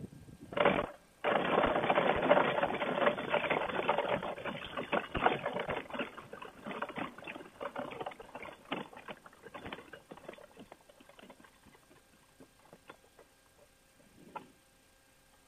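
Paramotor trike rolling out across a rough grass field with its engine off, its wheels and frame rattling. The dense rattle sets in about a second in and dies away over the next several seconds as the trike slows to a stop, and a few faint clicks follow.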